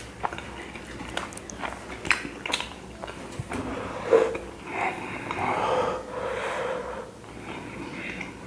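A man eating chapati with curry: a few sharp clicks of eating and handling in the first seconds, then a stretch of loud, breathy, wheezing breathing in the middle.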